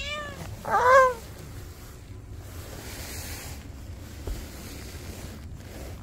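Orange tabby cat meowing twice within the first second, each meow rising and then falling in pitch, the second one louder.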